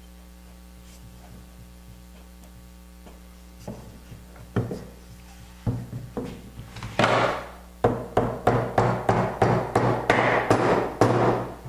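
Dowelled wooden half-lap joint being knocked together with a hammer: a few scattered knocks, then a run of sharp, evenly paced strikes, about two a second, in the second half.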